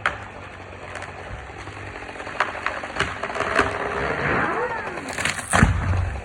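A felled tree cracking and snapping as it goes over, with a chainsaw idling for the first couple of seconds. Branches rush through the air, then a heavy thud about five and a half seconds in as the tree hits the ground.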